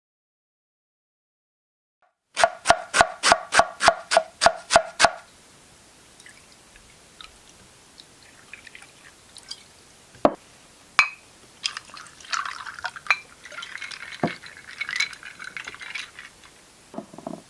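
Foley sounds: a quick run of about a dozen ringing clinks, then scattered sharp taps and a longer spell of light clatter, with a liquid-like character.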